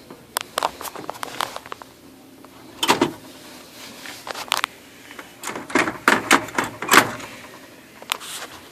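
OKI MB480 laser multifunction printer's mechanism grinding, a string of irregular clicks and knocks with short scraping bursts, the fault that makes this new unit jam and throw errors.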